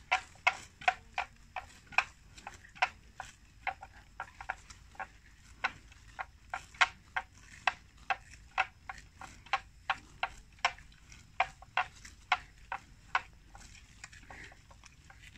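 Water buffalo grazing, tearing off mouthfuls of grass: a steady run of crisp rips, about two to three a second, that stops near the end.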